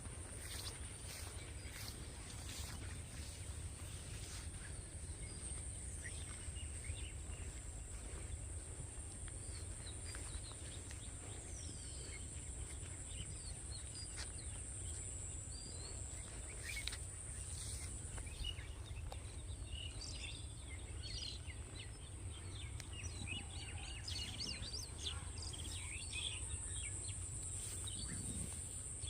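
Rural outdoor ambience: a steady high-pitched insect drone, with scattered bird chirps and a low wind rumble on the microphone.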